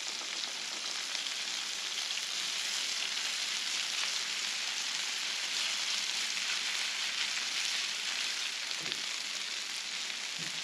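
Several batches of shredded hash browns frying on a hot Blackstone flat-top griddle: a steady, even sizzle.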